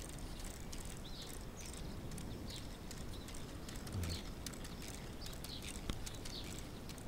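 Faint birdsong, short chirps throughout, with light scattered clicks from the K'Nex car's plastic gears and ratchet as it works; a soft thump about four seconds in and a sharper click near the end.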